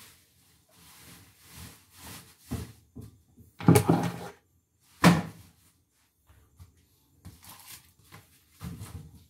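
A power cord being gathered up off a wooden tabletop by hand, its plug knocking against the wood: a cluster of knocks about three and a half seconds in and one sharp knock about a second later, between quieter handling and rustling.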